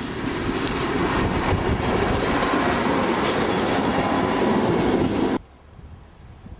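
Diesel Red Hen railcar 405 running past close by, its engine and wheels on the rails building in loudness. The sound cuts off abruptly about five seconds in, leaving faint wind.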